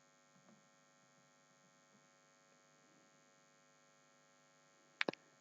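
Near silence with a faint steady electrical hum, and two quick clicks near the end.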